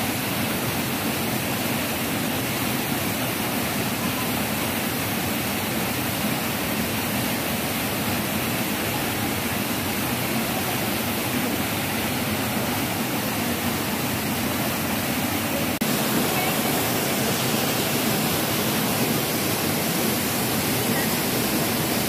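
Waterfall rushing steadily down a narrow rock chute, a constant roar of falling water that grows slightly louder about two-thirds of the way through.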